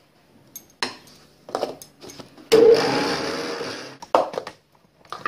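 Electric mixer grinder running in a short burst of about a second and a half, grinding dry chatua powder (roasted flattened rice, biscuits and nuts) in a steel jar. It starts abruptly about halfway through and cuts off, with short knocks of handling before and after it.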